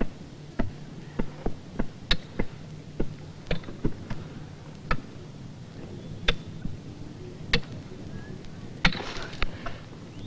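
Ice pick striking glacier ice: sharp single blows at an uneven pace, quicker at first and then spaced out, with a longer crackling clatter near the end as ice breaks up.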